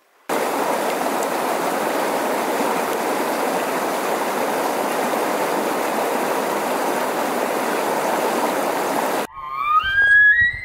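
Rushing mountain stream, a steady hiss of water that cuts in and out abruptly. Near the end, a high whistled call begins, climbing in pitch in steps: an elk bugle.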